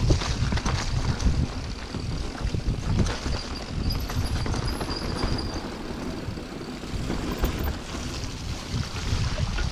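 Mountain bike riding down a rough trail: wind buffeting the camera microphone over a steady low rumble of tyres on dirt and stones, with frequent clicks and rattles from the bike.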